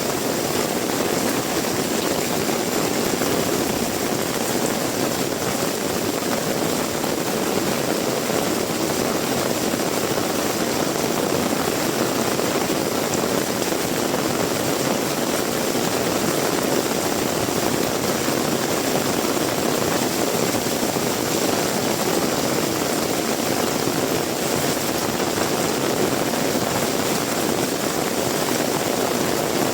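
Heavy rain falling steadily, a dense even hiss with no breaks or single events.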